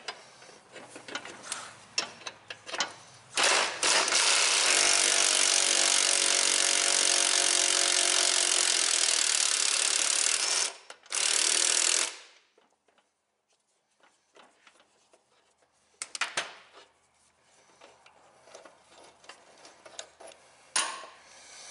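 Cordless impact wrench hammering on a gear puller's forcing screw to draw a rust-seized blade pulley off a lawn mower crankshaft: a long run of about seven seconds, a brief stop, then another short burst. A few metal clinks follow as the puller is handled.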